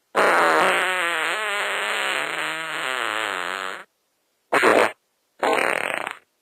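Fart sounds: one long fart with a wavering pitch lasting nearly four seconds, then two short farts, each cut off into dead silence.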